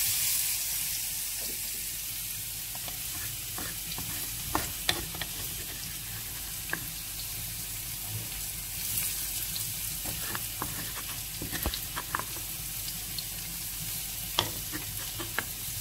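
Minced garlic sizzling in hot olive oil in a frying pan, a steady hiss that starts abruptly as the garlic goes into the oil, with a few sharp clicks scattered through it.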